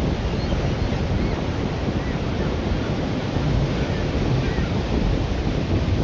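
Wind buffeting the microphone in a steady rumbling rush, over waves breaking on the shore.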